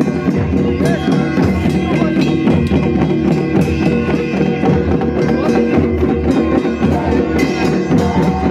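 Traditional Himachali folk band playing for a deity procession: drums beating steadily under held notes from wind instruments, with crowd voices mixed in.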